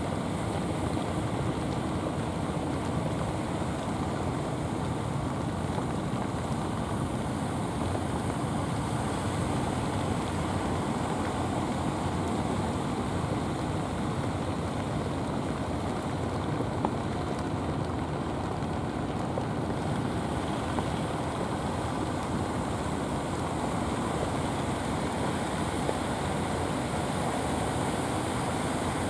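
Steady wash of surf on a rough sea, mixed with wind.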